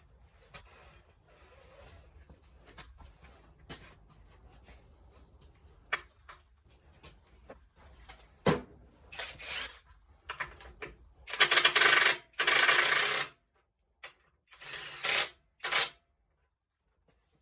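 Metal parts and tools clinking and knocking as they are handled, with a few loud harsh bursts about a second long past the middle.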